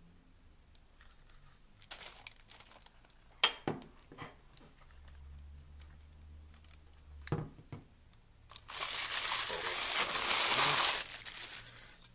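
Packaging being unwrapped by hand: scattered clicks and knocks of handling, then from about eight and a half seconds in, some two and a half seconds of loud crinkling and tearing of wrapping.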